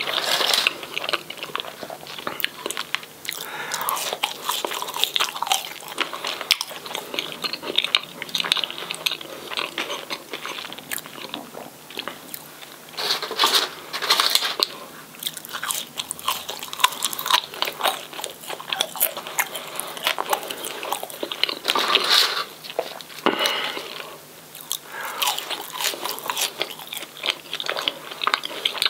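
Close-miked biting and chewing of crispy battered fish and fries: repeated crunches with wetter chewing between them, and louder bursts of crunching about halfway through and again a little later.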